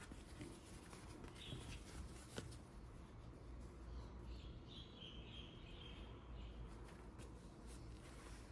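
Faint rustling of fabric briefs being handled and laid on a wooden table, with light clicks and one sharper tap about two and a half seconds in.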